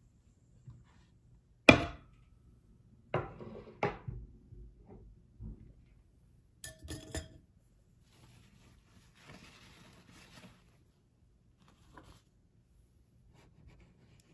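Tableware being set down on a table: a sharp knock near the start, then a few more knocks and clinks, two close clinks with a short ring about seven seconds in, and a soft paper rustle as a napkin and plastic fork are laid out.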